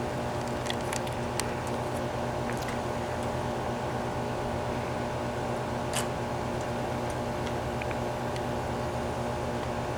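A steady mechanical hum with a few light clicks or taps, the sharpest about six seconds in.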